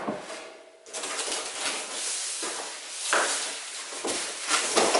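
Plastic bubble-wrap packaging rustling and crinkling as it is handled, with louder crackles about three seconds in and again near the end.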